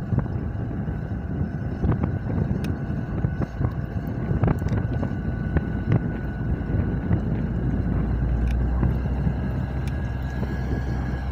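Vossloh G6 diesel-hydraulic shunting locomotive running under load as it hauls a train of tank wagons slowly past, a steady low rumble that becomes a stronger, deeper drone about seven seconds in. Scattered clicks and knocks sound over it.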